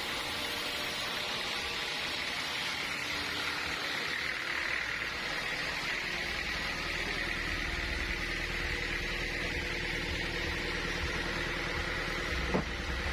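Sawmill machinery running steadily with a high whine. A low rumble builds in about halfway through, and there is a single knock near the end.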